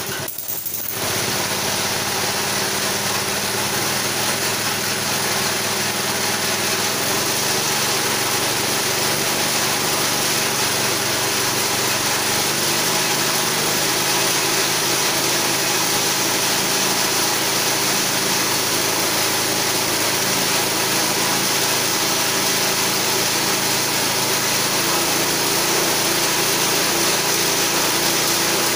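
Small 6.5 hp single-cylinder petrol engine driving a homemade chainsaw mill, running steadily at a constant speed after picking up about a second in.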